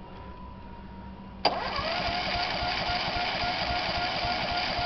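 Electric starter of a 1988 John Deere 14SE mower's Kawasaki FC150V engine kicking in suddenly about a second and a half in and cranking steadily with a whine, the engine not yet running; the owner finds the cold engine was flooded.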